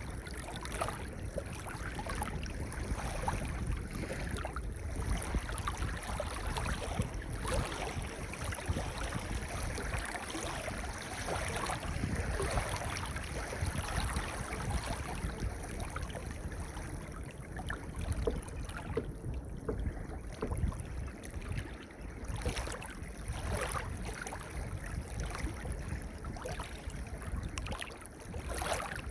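Gentle sea waves washing up and drawing back over a pebble beach: a continuous wash full of fine clicks of stones rattling, swelling and easing irregularly every few seconds.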